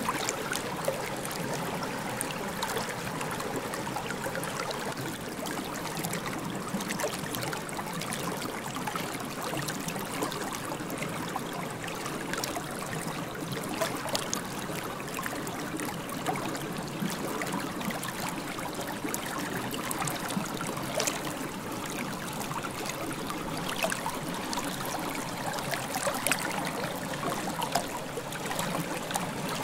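Underwater river ambience heard through a GoPro's waterproof housing: a steady, muffled water noise with scattered sharp clicks and ticks.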